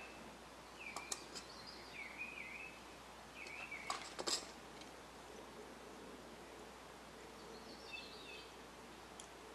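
Light clicks and taps as small metal parts of a radio chassis are handled, the loudest cluster about four seconds in. A few short wavering chirps come in the first four seconds and once more near the end.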